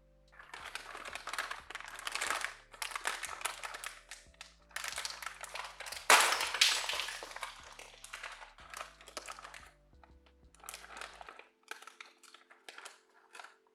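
Bursts of dense plastic clicking and clattering, loudest about six seconds in, over quiet background music.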